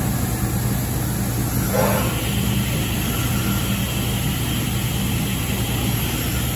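Band saw with dust extraction running steadily with a low hum, cutting pine blocks. About two seconds in, the sound brightens as the blade bites into the wood.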